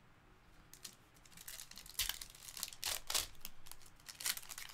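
Foil wrapper of a Panini Select baseball card pack being torn open and crinkled by hand, a run of sharp crackles that starts about a second in, the loudest near the middle and again near the end.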